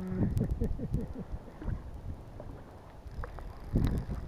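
Wind buffeting the microphone in irregular low gusts, with a few sharp clicks and a louder cluster of low knocks about four seconds in.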